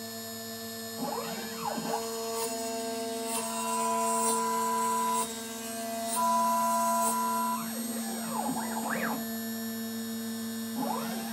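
Home-built CNC milling machine running: a steady motor hum with higher whines that switch on and off, and stepper-motor whines that rise and fall in pitch as the axes move, a few times.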